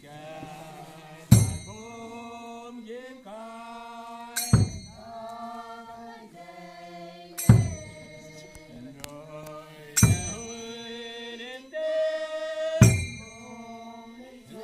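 Naga dancers chanting a traditional dance song together in long held phrases. A loud sharp strike marks the beat about every three seconds.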